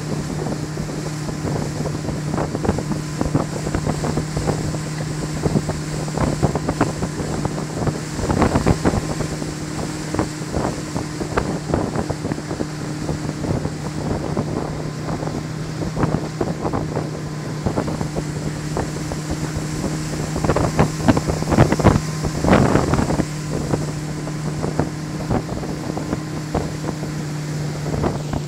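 Correct Craft ski boat's inboard engine holding a steady drone while towing a wakeboarder, under the constant rush of the wake and spray. Wind buffets the microphone in irregular gusts, strongest about a third of the way in and again past two-thirds.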